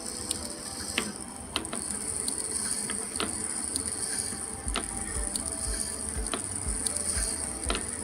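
AL960B metal lathe running with the 3-jaw chuck turning, a steady high whine and scattered gear clicks. From about halfway a regular low knock sounds about twice a second.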